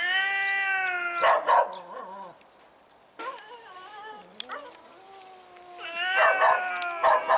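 Cats' aggressive yowling: a long drawn-out warning yowl at the start, a quieter wavering one in the middle and another near the end, broken by short sharp spits. It is a cat warning off an unfamiliar cat in a standoff.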